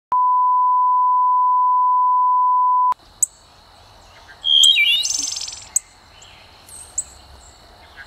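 A steady 1 kHz test tone, the kind played with colour bars, sounds for about three seconds and cuts off suddenly. Then birds: a few sharp, high chip notes and, about halfway, a short song of slurred notes ending in a fast trill.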